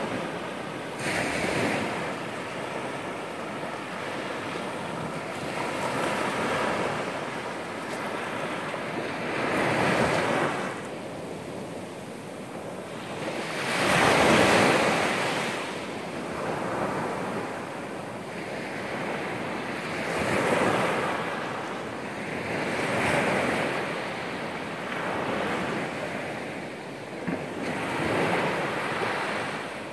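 Small sea waves breaking and washing up a sandy beach, the surf swelling and fading every few seconds, with the biggest wave about halfway through.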